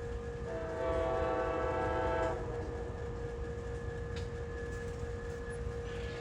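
Train horn sounding a single chord blast of about two seconds, over the steady low rumble and constant hum of a train.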